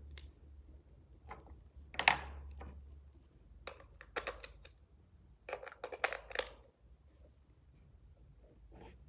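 Knocks and taps of wax-covered LED candles being handled and set down on a table: one sharp knock about two seconds in, then clusters of lighter clicks and taps.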